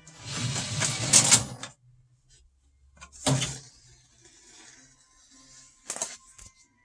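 Lid of a Technics SL-MC7 CD changer being lifted open: a loud scraping, rattling rush lasting about a second and a half, then two sharp clicks a few seconds apart as the machine is handled.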